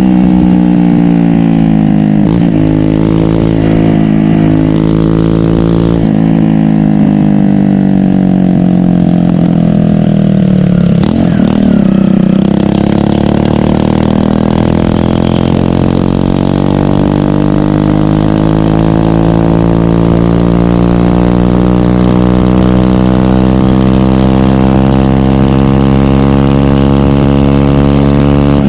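A 150 cc single-cylinder motorcycle engine running loud. Its pitch dips briefly a few times, drops steeply about eleven seconds in, then climbs slowly and steadily for the rest.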